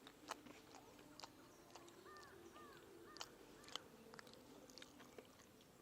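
Near silence with faint clicks and smacks of someone eating, and two short, faint bird calls about two seconds in.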